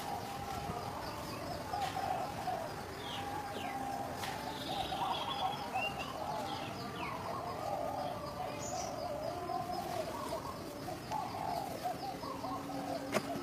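Animal calls: a continuous wavering chatter of calls, with short falling chirps now and then.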